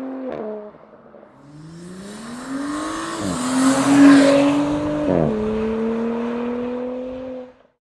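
Exhaust note of an Audi B9 S4's turbocharged 3.0-litre V6 under acceleration. The engine pitch climbs, drops sharply at an upshift a little past three seconds in and again about two seconds later, then holds in the higher gear before cutting off suddenly near the end.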